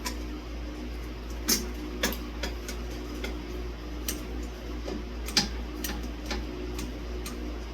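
Irregular light clicks and taps of metal hardware as blades are fitted to a ceiling fan, about one or two a second, over a steady low hum.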